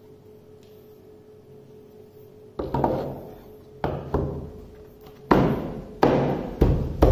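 A thick PVC plate knocked and thudded as it is set down and pressed into corner clamps on a CNC router bed: about six sharp knocks at irregular intervals, starting about two and a half seconds in, each ringing briefly before it fades.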